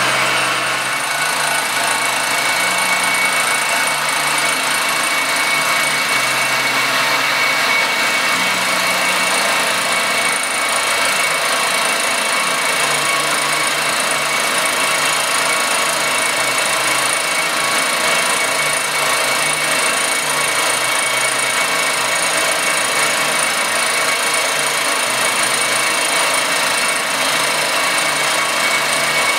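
Circa 1948 Gorton 8-1/2D vertical milling machine running, its end mill cutting an aluminum casting. It runs steadily with a constant high-pitched tone.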